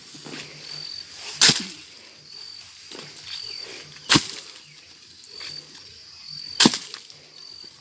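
Three sharp cracks about two and a half seconds apart, as ears of corn are snapped off their stalks by hand. Faint short high chirps repeat in the background.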